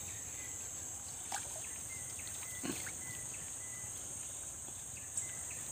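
Steady high-pitched drone of forest insects, with a few faint knocks.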